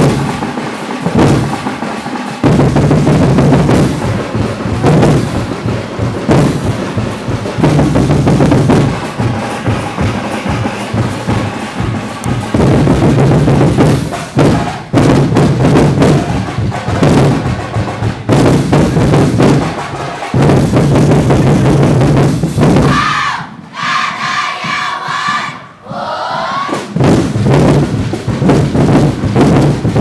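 Loud drum-heavy percussion music accompanying a festival street dance, driving a steady fast beat. The drumming breaks off briefly about three-quarters of the way through, filled by a pitched sound, then comes back.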